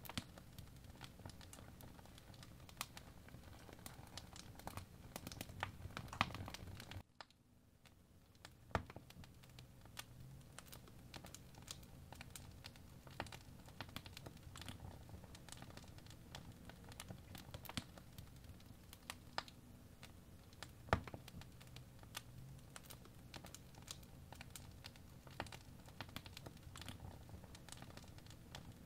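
Apple Pencil's plastic tip tapping and scratching on the iPad's glass screen in irregular light clicks during drawing strokes, over a faint low room hum.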